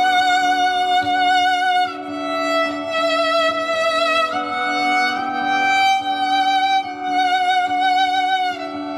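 Viola bowed in a slow melody of long held notes with vibrato, changing note every second or two, layered over a steady, rhythmically pulsing lower note laid down with a loop pedal.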